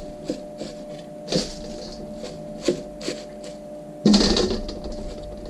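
Small food processor pulsed once about four seconds in, chopping vegetables, with a sudden start that fades over about a second. A few knocks and clicks come before it.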